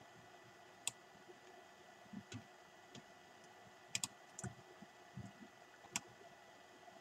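Faint, sharp clicks of a computer mouse and keyboard, about half a dozen scattered through, with two close together about four seconds in, over a low steady hiss.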